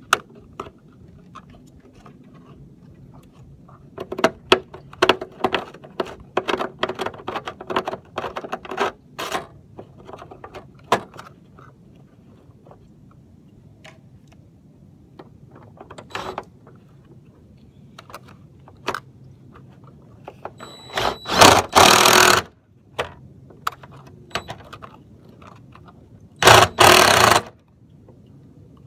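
Cordless drill driving a gutter screw through the gutter into the eave, in two short runs of about a second each, the second coming about five seconds after the first. Earlier, a string of light clicks and metal scrapes.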